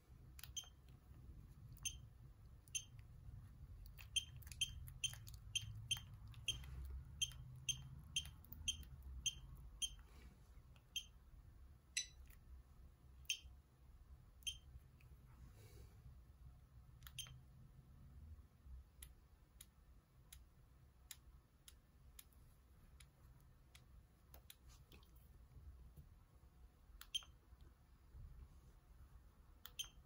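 Keypad beeps of a Sony CMD-Z5 mobile phone as its keys are pressed to scroll the menu: short high beeps, all at much the same pitch, coming quickly, about two a second, for a few seconds, then now and then.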